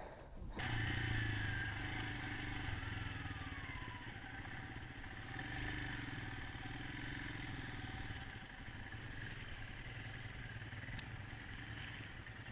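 Royal Enfield Himalayan single-cylinder motorcycle engines running steadily at low revs.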